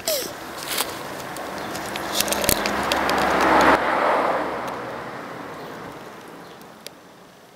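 Hermann's tortoise gives a short squeak that falls in pitch, mouth open, as it rubs against a rock. A rushing noise then swells to a peak about three and a half seconds in and fades away, with scattered clicks.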